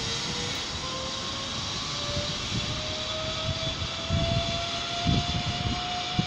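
Zip line trolley pulleys running along a steel cable, a whine that rises slowly and steadily in pitch as the rider gathers speed. From about four seconds in, low gusts of wind buffet the microphone.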